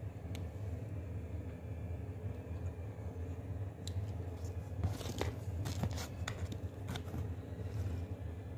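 Short crackling and scraping noises as a cheesy pizza slice is pulled apart and lifted off a cardboard pizza box, bunched together in the middle of the stretch, over a steady low hum.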